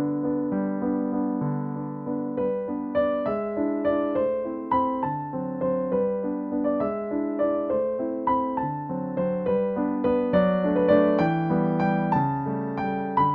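Background piano music: a gentle melody of quickly decaying notes, played at a steady pace.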